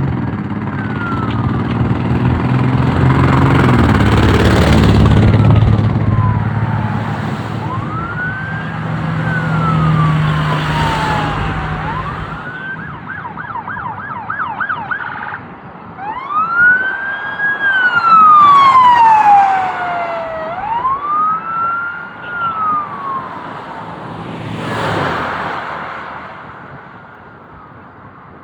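Ambulance electronic sirens going by: a slow rising-and-falling wail that switches to a fast yelp for a few seconds near the middle, then goes back to the wail. Engine and tyre noise swell as the vehicles pass, and the sirens fade away near the end.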